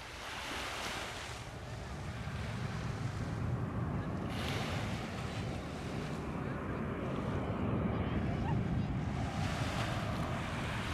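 Boeing 737-800 airliner with CFM56 jet engines rumbling as it comes in to land, growing gradually louder, with wind gusting on the microphone.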